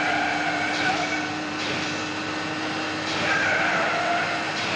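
Boeing 727 landing-gear tyres squealing and skidding on the runway under hard braking during the landing rollout. A wavering screech runs over a steady low hum, eases a little in the middle and grows louder again near the end.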